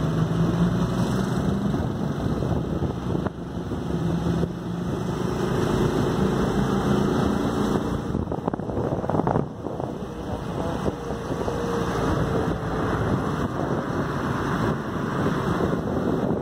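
Motorcycle engine running while riding at low speed, its pitch rising and falling gently with the throttle, with wind buffeting the microphone.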